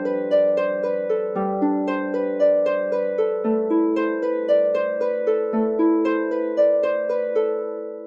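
Instrumental ringtone music: a melody of plucked, harp-like notes, a few a second, over held lower notes. The last notes ring out and fade near the end.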